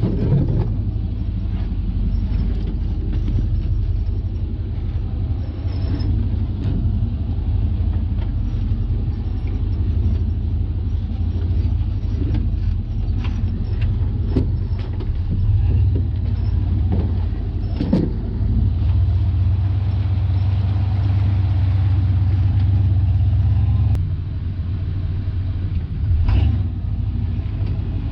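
Off-road Jeep engine running steadily at low revs while crawling, with a few knocks and clunks from the rig working over the terrain.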